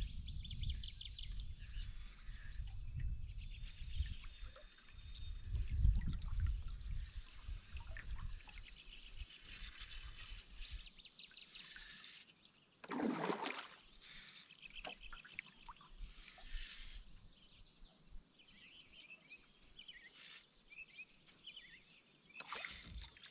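Water trickling and lapping around a canoe, with one louder splash about halfway through and birds singing faintly. A low rumble runs under the first half.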